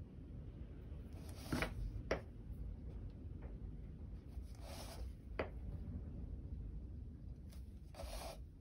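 Quiet handling of a dot painting: a few light clicks and taps from the dotting tool, the canvas and the paint pot, and two brief soft rustles, over a low steady hum.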